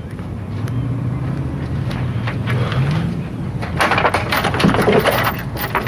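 Low hum of a vehicle engine that rises a little in pitch about three seconds in, followed by a run of short knocks and clatter.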